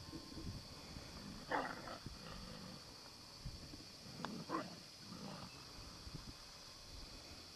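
Arctic wolves giving a few short, distant calls, one about one and a half seconds in and a couple more around four to five seconds in, during a dominance bout in which the dominant male holds a younger male pinned to the ground.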